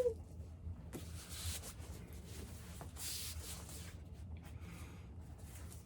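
Cardboard packaging of a vinyl box set being handled, with soft rubbing and sliding scrapes, the plainest about a second in and again about three seconds in.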